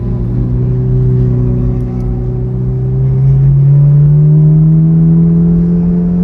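Ferrari engine with a loud aftermarket exhaust, running at low revs while the car creeps along. It drones steadily, and the pitch rises a little about three seconds in, then holds.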